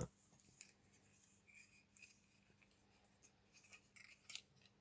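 Near silence with faint handling noise from small plastic Nerf blaster parts: light rubbing and a few soft clicks, the clearest near the end.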